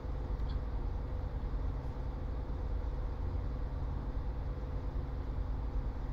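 Steady low hum of background room noise, with no distinct event.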